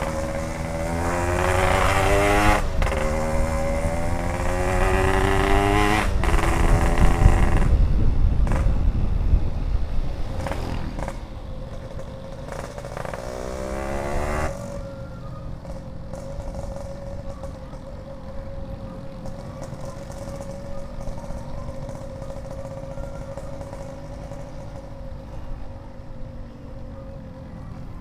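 Yamaha RX-King's two-stroke single-cylinder engine accelerating hard, its pitch climbing with two brief breaks as it changes up, then easing off. It climbs once more about halfway through, then runs steadily and more quietly.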